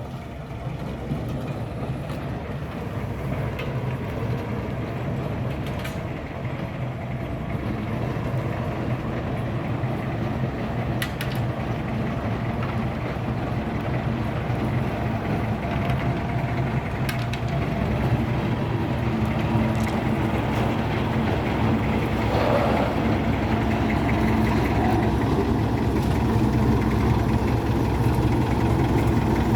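Heavy engine of road-construction machinery running steadily at a low, even pitch, growing gradually louder.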